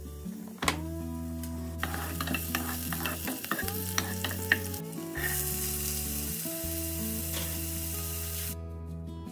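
Diced red onion sizzling in oil in a nonstick pot, stirred with a wooden spoon that scrapes and taps against the pan. The sizzle grows louder about five seconds in and cuts off suddenly shortly before the end. Soft background music plays underneath.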